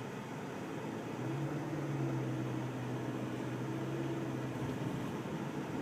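Steady engine and road noise inside a moving car's cabin, with a low hum that comes up about a second in and eases off near the end.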